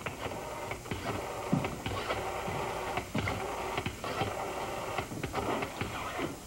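Rotary telephone dial clicking and whirring back as a number is dialled, a continuous mechanical ticking.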